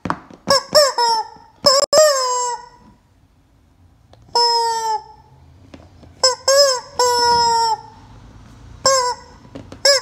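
Squeaky yellow rubber chicken toy squeezed by hand, giving a string of about ten honking squawks. Each squawk swoops up and then holds, some short and some drawn out, with a pause of about a second near the middle.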